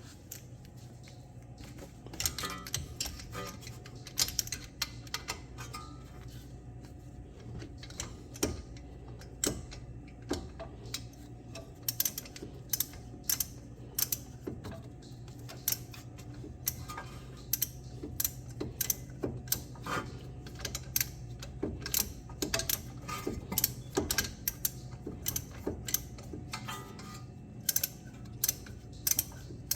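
Hand ratchet wrench clicking in quick runs of sharp ticks as the upper brake caliper bolt is tightened, over a steady low hum.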